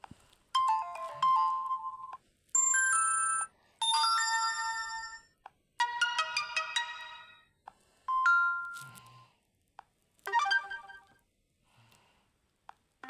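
Infinix Hot 8 Lite phone speaker playing a string of short ringtone previews, one after another. There are about six different chiming melodies, each about a second or so long and cut off as the next tone is picked, as the tones are browsed in the phone's sound settings.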